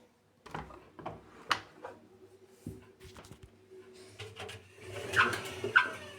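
Edesa washing machine drum knocking and clunking irregularly over a faint steady hum. About four seconds in a rushing noise swells, with a few louder, ringing metallic clunks near the end.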